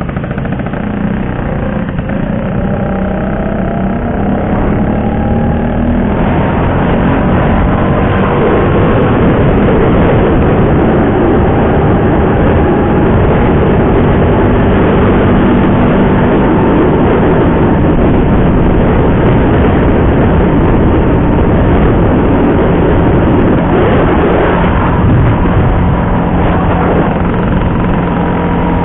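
Vespa PX150 scooter's single-cylinder two-stroke engine running under way, its pitch rising as it accelerates over the first few seconds, then holding steady, mixed with a dense rush of wind and road noise.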